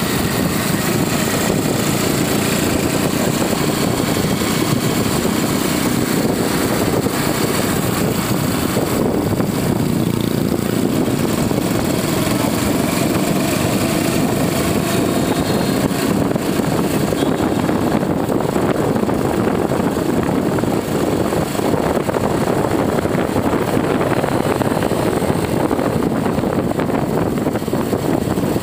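Motorbike engine running steadily while riding along at speed, mixed with a steady rush of wind over the microphone.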